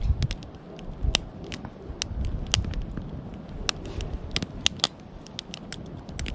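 Wood campfire crackling: irregular sharp pops and snaps over a low rumble.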